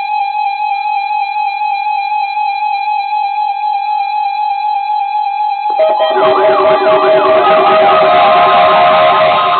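Weather radio test alert tone: one steady electronic tone that stops about six seconds in. Louder music with several held notes and wavering, sliding ones then takes over.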